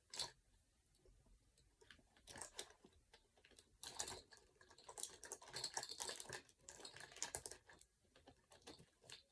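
Faint clicking and clattering of plastic fidget toys being rummaged through in a pile, irregular and busiest in the middle.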